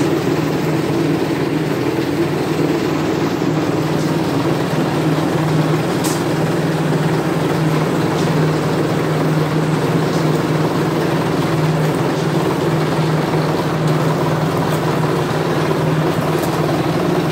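Rattan sizing machine running with a steady motor drone as rattan poles are fed through its rollers, with a few sharp clicks.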